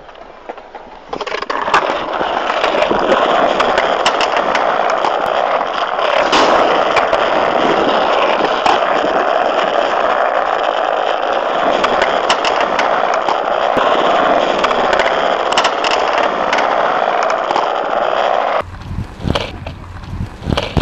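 Skateboard wheels rolling steadily over rough, cracked concrete, a loud continuous roar with scattered clicks and knocks. Near the end the rolling drops away and a few sharp wooden clacks of the board popping and landing stand out.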